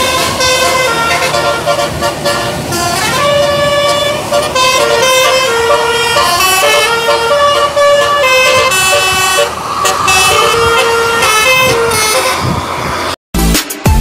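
Bus musical air horn ('telolet' / basuri) playing a tune, its horn tones stepping up and down from note to note over the running bus. It cuts off suddenly near the end.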